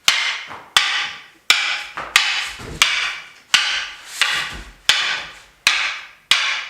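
Two walking canes striking each other in a sparring drill: about ten sharp clacks at an even pace, roughly one every two-thirds of a second, each ringing briefly.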